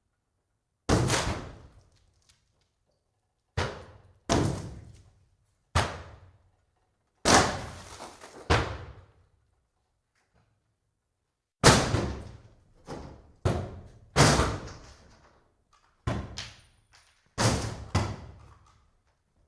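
Axe blows striking the wooden boards of a cabin being wrecked: about fifteen heavy, sharp hits at irregular spacing, some close together and one pause of about three seconds, each dying away quickly.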